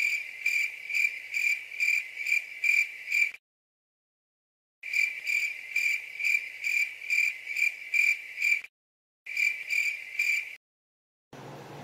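Cricket chirping in an even rhythm, about three to four chirps a second. The sound drops out completely twice for a second or so.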